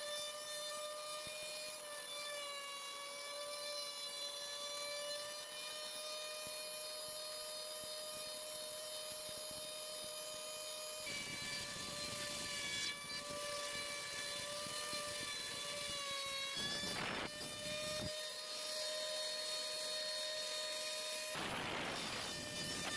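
CNC router spindle running at a steady high whine while its bit carves MDF, the pitch wavering slightly under the cutting load. A rougher rushing noise joins about halfway through, with two short louder rushes near the end.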